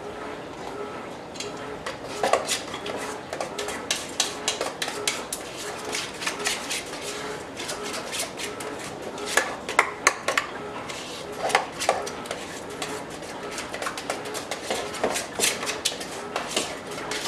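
Spoon stirring and scraping a thick yogurt-and-spice marinade in a stainless steel mixing bowl, with frequent irregular clinks of the spoon against the metal bowl.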